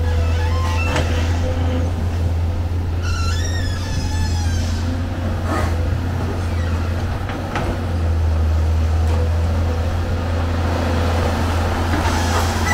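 Amphibious excavator's diesel engine running steadily with a deep, even drone. A short run of high chirping notes comes about three seconds in, and there are a few light clicks.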